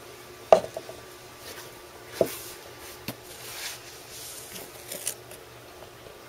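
A few light knocks and clunks as a plastic Nesquik container and cups are handled and set down on a kitchen counter. The sharpest comes about half a second in, with smaller ones around two, three and five seconds in, and faint rustling between them.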